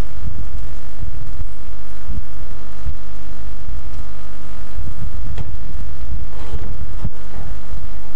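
Loud, irregular low rumbling and thumps of handling noise from a microphone jostled against people's clothing, over a steady electrical hum.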